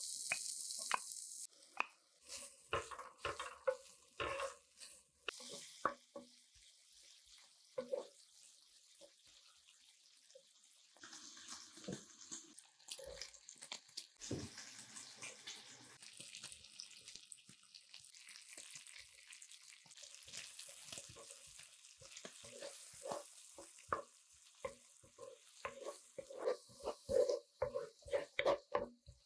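Diced bacon sizzling in a nonstick frying pan while a wooden spatula stirs it, with short clacks and scrapes of the spatula against the pan. A loud hiss in the first second or so; the knocking grows denser and louder near the end as corn, peas and onion are stirred through.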